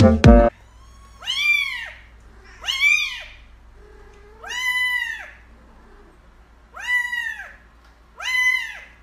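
Kitten meowing five times, with high-pitched calls that each rise and then fall in pitch, spaced about one and a half to two seconds apart. A snatch of music cuts off about half a second in.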